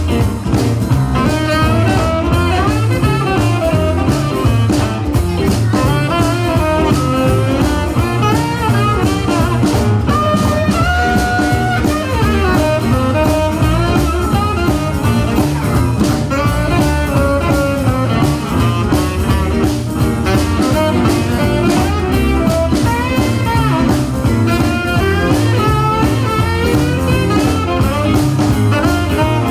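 Tenor saxophone playing a solo over a small live band, with piano, drums and bass behind it.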